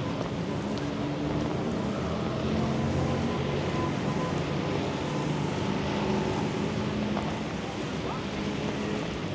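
Rainy city street ambience: a steady hiss of rain and wet road noise with motor traffic running.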